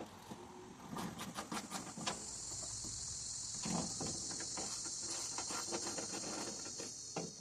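Light clicks and knocks of hand tools and loose screws being handled while the tailgate latch plate's screws are removed. From about two seconds in, a steady high-pitched hiss runs underneath and stops suddenly at the end.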